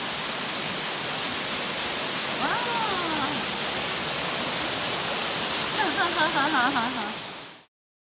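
Yoro Falls and its rocky cascade: a steady rush of falling water that cuts off abruptly about seven and a half seconds in.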